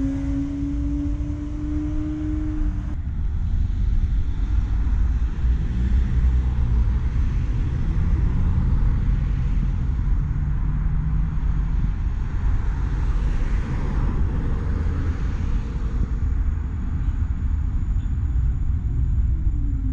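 Steady low rumble of road traffic and wind around a tram stop. A rising electric tram motor whine stops abruptly about three seconds in. Near the end an approaching low-floor tram's motors give a falling whine as it slows toward the platform.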